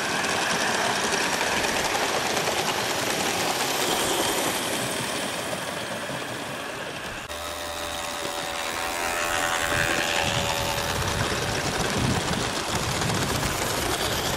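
Large-scale model train running along a raised wooden track, a steady mechanical running noise of the locomotive and its wheels on the rails. The sound changes abruptly about halfway through.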